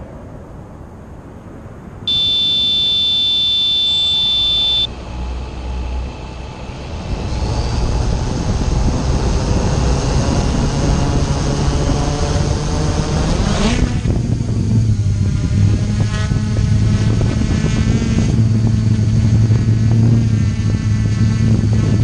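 A long, steady electronic beep about two seconds in, then the Aton drone's electric motors and propellers spin up, rising in pitch. Near fourteen seconds in the motors surge as the drone lifts off, then settle into a steady buzz in flight.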